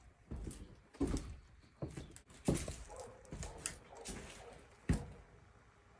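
Someone walking in through a door: irregular footsteps and knocks on the floor. A sharp knock about five seconds in is the loudest.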